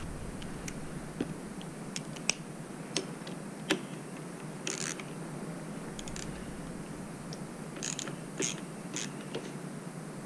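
Irregular sharp clicks and a few short rasping strokes of hand tools and small metal parts being handled during motorcycle assembly work.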